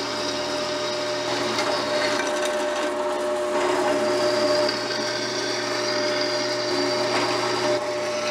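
Drill press running with a steady motor hum, its twist bit cutting 3/8-inch holes through welded aluminium angle plate. The cutting noise swells and eases a few times as the bit is fed in and backed out.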